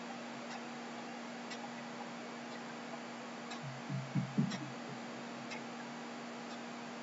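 Faint, even ticking of a clock, about one tick a second, over a steady low hum. A short low murmur like a hummed "hmm" about four seconds in.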